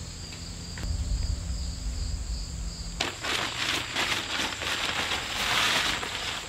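Nylon tent fabric rustling and crinkling as it is lifted and handled, starting about three seconds in and loudest near the end, with a steady chirping of insects behind it. Before the rustling there is only the insects and a low rumble.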